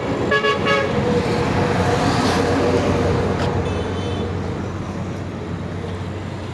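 Road traffic noise with a steady engine hum and a few short horn toots, the first about half a second in.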